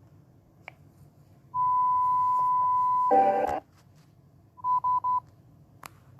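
Emergency alert alarm played through a speaker. A steady high beep is held for about a second and a half, cut off by a short harsh buzz, then come three quick beeps, and the long beep starts again.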